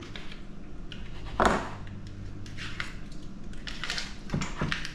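A small tub of cream cheese being worked open by hand, with one short sharp sound about a second and a half in, then scattered light clicks and knocks.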